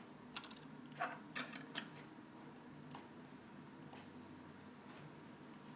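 A few small, sharp clicks and taps of metal repair tools against an opened iPhone 4S's internal parts, clustered in the first two seconds with one more about three seconds in, over a faint steady hum.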